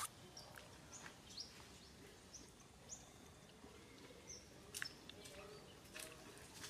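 Faint outdoor background with small birds chirping now and then in short, high chirps, and a few soft clicks.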